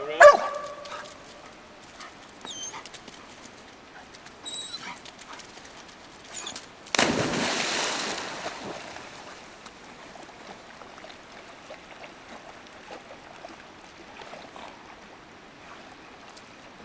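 A dog yelps briefly at the start. About seven seconds in comes one sudden, loud rush of noise that dies away over a couple of seconds, over the faint steady sound of running creek water.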